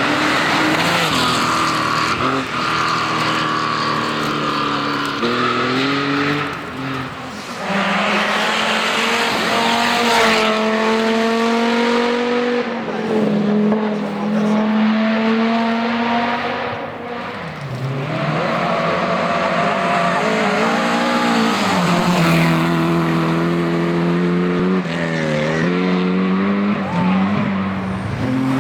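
Historic rally car engines revving hard on a special stage, the pitch climbing through each gear and dropping sharply at every shift, several times over.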